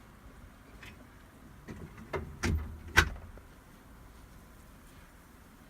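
A door being opened: a few knocks and clunks about two to three seconds in, the sharpest one at about three seconds.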